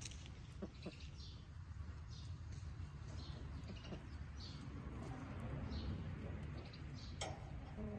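Faint bird chirping: a regular series of short, high, falling chirps, about two a second, over a steady low rumble, with one sharp click near the end.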